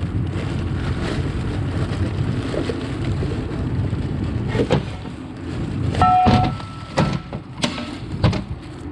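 Steady low rumble of the shop, with a few sharp knocks and clinks of tools and hub parts being handled during work on a tractor's front planetary hub, and a brief squeak about six seconds in.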